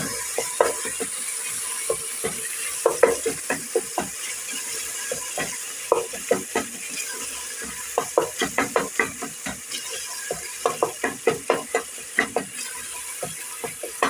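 A spoon stirring a pot of softening tomatoes, with repeated quick knocks and scrapes against the pot, over a steady sizzle of food frying.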